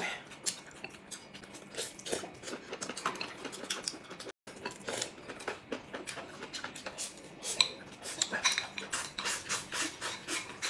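Table eating sounds: chopsticks clicking against porcelain bowls, with noodles being slurped and chewed, many short clicks throughout. The sound cuts out completely for a moment about four seconds in, and the clicking grows busier near the end as broth is drunk from a bowl.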